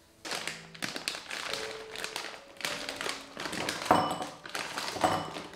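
Rapid, irregular tapping and clicking, with two louder knocks near the end.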